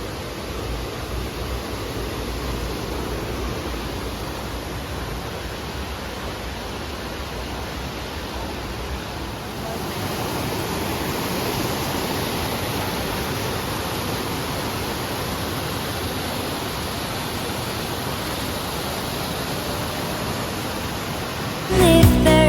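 Steady rushing of a waterfall, a little louder from about ten seconds in. Music starts in the last second.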